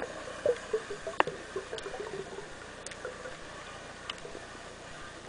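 Underwater sound picked up by a submerged camera: a steady hiss with short blips and a few scattered sharp clicks, the loudest about a second in.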